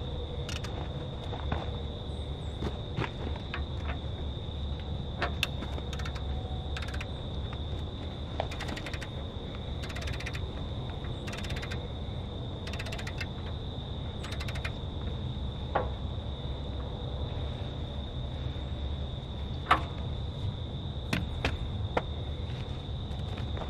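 A steady, high-pitched insect chorus over a low rumble, with scattered sharp clicks and knocks, some coming in quick short runs.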